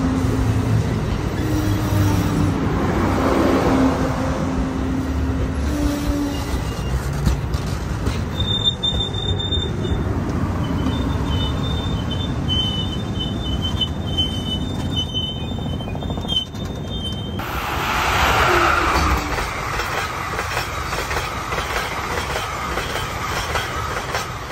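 Amtrak passenger train passing close by: a steady rumble of wheels on rail, with a high, thin squeal from about eight to seventeen seconds in. The sound fades near the end as the train moves off.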